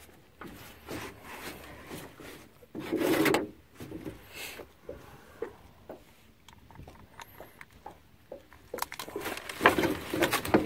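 Handling noise from unhooking a pike in a landing net with pliers in an aluminium boat: rubbing and scraping of net mesh and tools, with scattered light knocks. There is a louder scuffle about three seconds in and a dense run of knocks near the end.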